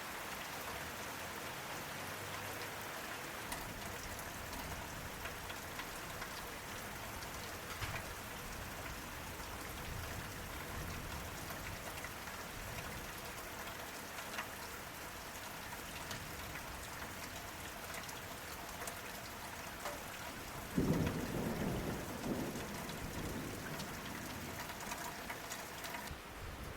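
Steady rain falling, with scattered drips. About three-quarters of the way through, a clap of thunder rumbles low and loud, then fades over a few seconds.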